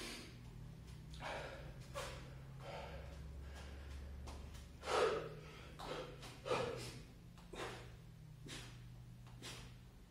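A man breathing hard from exertion during burpees and push-ups: short, forceful breaths and gasps about once a second, the loudest about five seconds in, over a faint steady low hum.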